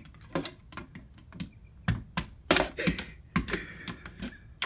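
An irregular series of sharp knocks and taps from a long wooden pole being handled and bumped against a wall and door, with a short scraping rustle in the middle.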